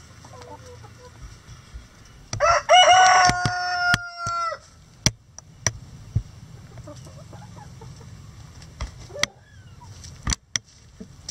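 A rooster crows once, about two seconds in: a cock-a-doodle-doo of short notes ending in a long held note, over the soft clucking of hens. A few sharp taps follow later on.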